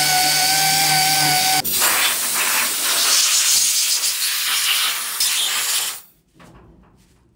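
Compressed air hissing in one long blast of about six seconds, then cutting off suddenly. A steady whistling tone rides over the hiss for the first second and a half.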